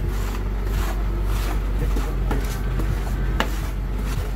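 Metal spatulas scraping, chopping and tapping on the frozen steel plate of a rolled ice cream machine as berry ice cream is spread thin, in repeated uneven strokes with one sharper knock about three and a half seconds in, over a steady low hum.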